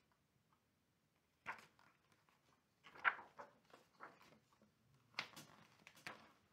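Pages of a picture book being turned: a few short paper rustles and flicks, the loudest about halfway through.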